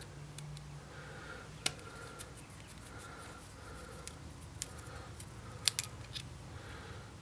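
Small metallic clicks of an Allen key turning a set screw out of the Azodin Blitz 2011 paintball marker's regulator, scattered and faint, with a sharp double click a little under six seconds in.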